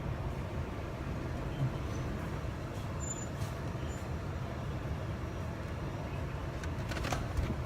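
Car running at low speed: a steady low engine and road rumble, with a few light knocks near the end.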